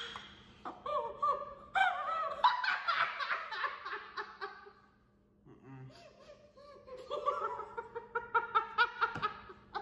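A woman laughing hard behind her hand, in two long bouts with a short lull about five seconds in.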